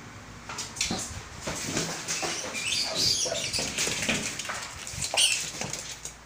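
A dog rummaging and scuffling through clutter while hunting a rat, with repeated knocks of objects being pushed about and short high-pitched squeaks about three seconds in and again past five seconds.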